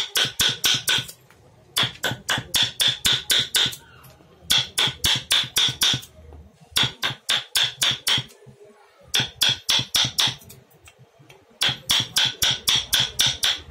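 A hammer tapping a carving chisel into wood in quick bursts of six to nine strikes, about four or five a second, with short pauses between bursts. Each strike has a brief metallic ring.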